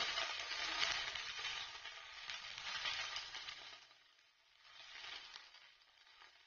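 Diced vegetables and paneer sizzling in oil in a nonstick frying pan, with red chilli sauce just poured onto them. The sizzle fades away about four seconds in, comes back briefly a second later, then dies down.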